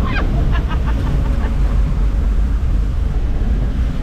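Vehicle driving over a rough dirt track: a loud, steady low rumble of engine and ground noise.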